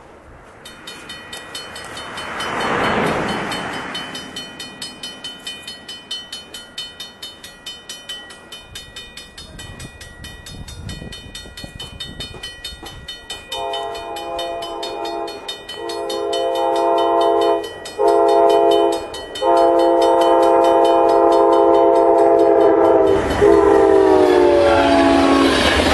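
Grade-crossing warning bell ringing rapidly, then a Nathan K5LA five-chime air horn on an Amtrak P42DC locomotive sounding long blasts with short breaks for the crossing. Near the end the horn drops in pitch as the locomotive passes at speed, giving way to the rushing clatter of the passenger train going by.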